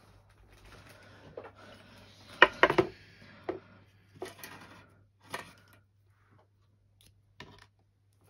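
Small plastic bags and containers being handled: soft rustling, then a loud cluster of sharp plastic clicks and rattles about two and a half seconds in, followed by a few single clicks spaced a second or so apart.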